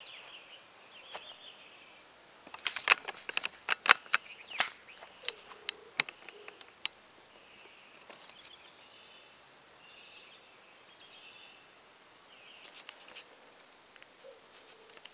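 Birds chirping outdoors, with a low cooing call twice. A cluster of sharp clicks and crackles comes about three to seven seconds in and again near the end.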